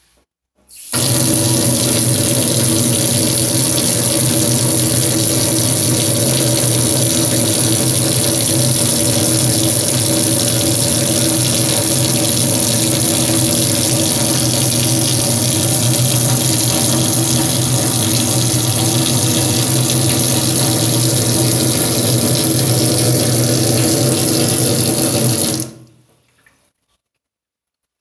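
Tap water running steadily into a stainless steel kitchen sink. It comes on suddenly about a second in and cuts off near the end.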